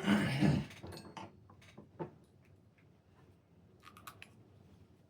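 A few light metallic clicks and ticks of small screws and a driver being handled while the back plate of a Traxxas 3.3 nitro engine is screwed on, one about two seconds in and a quick cluster near four seconds.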